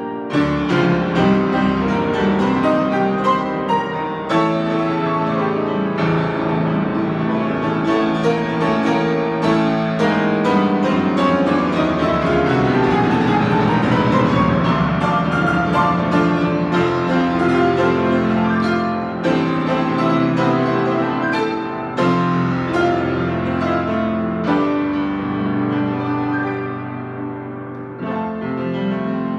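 A 93-year-old grand piano, freshly tuned, played continuously with fast runs and chords over a deep bass register. Around the middle, a long run sweeps across the keyboard.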